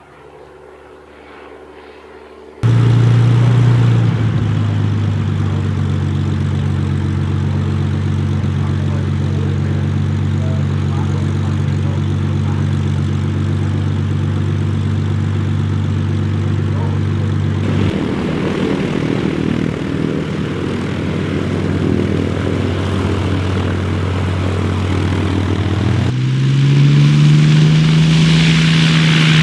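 Hawker Hurricane's Rolls-Royce Merlin V12 engine running at a steady pitch, starting suddenly about two and a half seconds in and changing abruptly twice. Near the end the pitch rises and it gets louder as the throttle opens.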